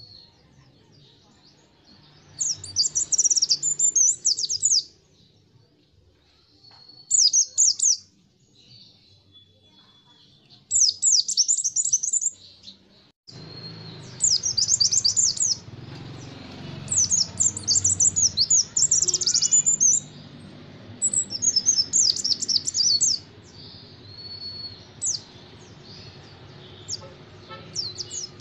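Caged white-eye (pleci) singing in rapid-fire 'nembak' bursts of fast, high chattering notes. Each phrase lasts one to two seconds, with short pauses between them and a few thin, steady whistled notes in the gaps.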